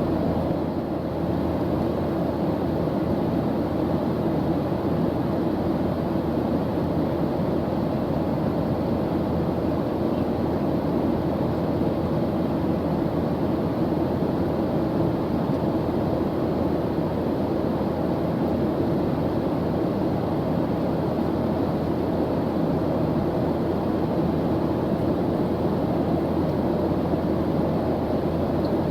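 Steady drone of an airplane's engines in flight: an even, low rushing noise that does not change.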